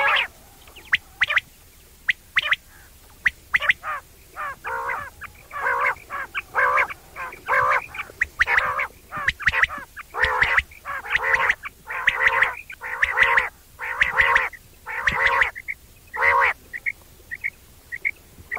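A male quail calling over and over, the 'wong wong' call: a long run of short pitched notes in quick succession, with a few brief high chirps near the end.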